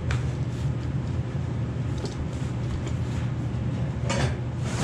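Cardboard boxes and packing being handled, with short rustles near the start and a louder rustle about four seconds in, over a steady low hum.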